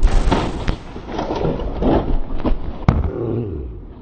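A Kawasaki Ninja 300 motorbike hits a car head-on: a sudden crash, then a string of knocks and scrapes as the bike and camera tumble onto the wet road, with one sharp bang about three seconds in.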